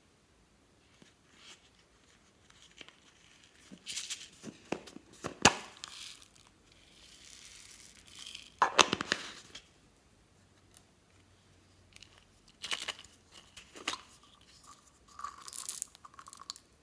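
Slime being stretched, pressed and pulled apart by hand, giving four short bursts of crackling, sticky popping and tearing.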